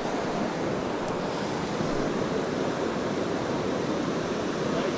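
Steady rushing of river water running over a rocky bed.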